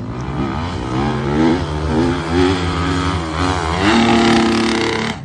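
Dirt bike engine revving hard, its pitch rising and falling several times as the throttle is worked, then holding high and steady near the end.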